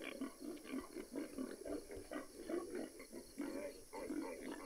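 Convergent Bullet electronic feral hog caller playing its recorded 'boar magnet' boar sounds: a steady string of short, low pig grunts, two to three a second.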